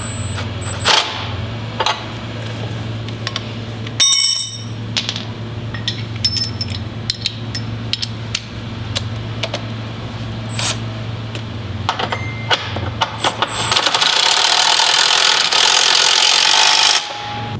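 Wrenches and bolts working on a steel engine-mount bracket: scattered metallic clicks and clinks over a steady low hum, with one ringing clink about four seconds in. Near the end a power tool runs for about three seconds.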